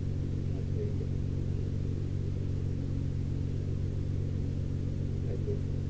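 Nissan GT-R R35's twin-turbo V6 engine running steadily, heard as an even low hum inside the cabin.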